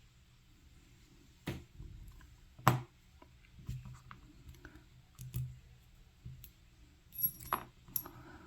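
Small metal lock parts of a disassembled Assa 700 clicking and tapping as they are handled: a string of separate sharp clicks, the loudest about two and a half seconds in, and a quick cluster near the end.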